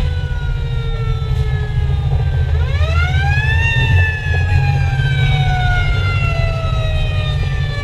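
Fire engine siren wailing: a slow fall in pitch, a quick rise about two and a half seconds in, then another long slow fall. Under it runs the heavy low rumble of the truck's engine and road noise.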